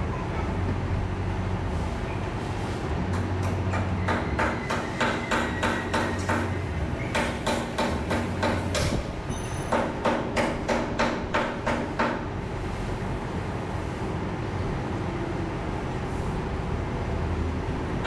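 Hand work on metal parts of a concrete pump's water pump: a run of sharp metal knocks, about two a second, in three bursts from about four seconds in until about twelve seconds in. A steady low hum runs underneath.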